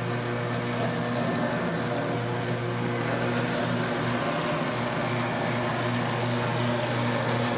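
Koblenz rotary floor machine running steadily, its motor humming as the pad scrubs soapy solution across a vinyl floor.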